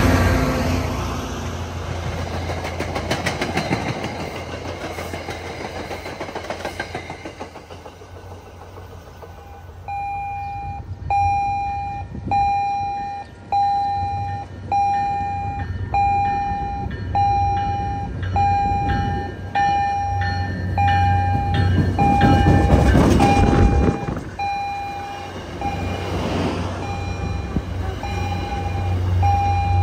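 Commuter train coaches rolling past with wheels clacking over rail joints, fading away over the first several seconds. Then a steady run of electronic warning beeps, roughly one a second, as another train's rumble builds and its coaches pass close by near the end.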